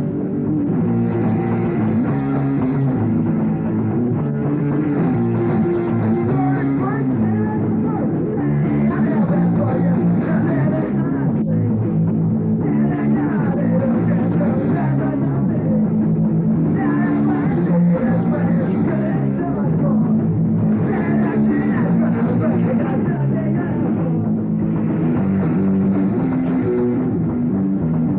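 Live punk-rock band playing a song, loud and continuous.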